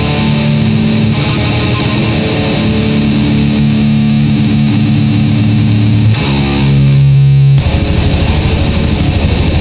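Metal music with distorted electric guitar playing held low notes that change every second or so. About seven and a half seconds in it switches abruptly to a denser, louder section driven by a fast, even beat.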